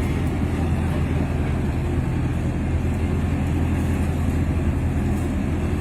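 A large ship's engine running steadily: an even, low drone.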